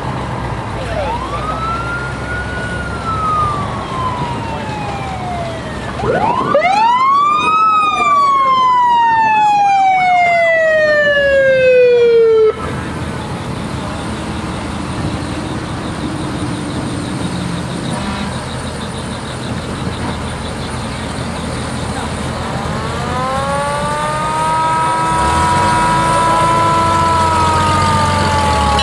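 Sirens on vintage fire trucks passing in a parade, wailing three times. Each wail winds up quickly and then winds down slowly over several seconds. The loudest starts about six seconds in and cuts off suddenly, over a low rumble of the trucks' engines.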